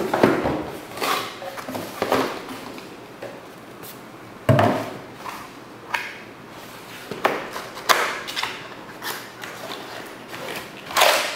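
Cardboard box being opened by hand: paper and cardboard flaps rustling and scraping, with a sharp knock about four and a half seconds in and a few lighter knocks later.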